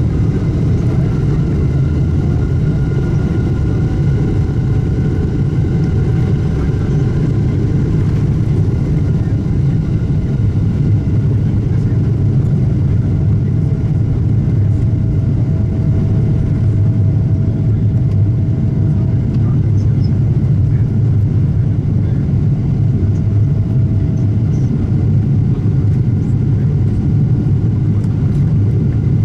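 Steady engine and airflow noise of a Boeing 777-200LR, heard inside the economy cabin: a dense low rumble with a faint steady whine above it.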